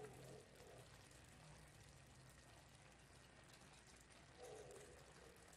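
Near silence, with a faint steady simmering hiss from a pan of spaghetti and sausages in broth over a very low flame.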